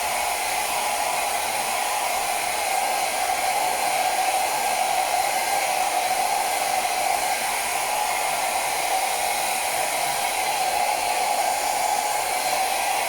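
Hair dryer blowing steadily, with a constant hum under the rushing air, drying wet paint on a canvas between layers.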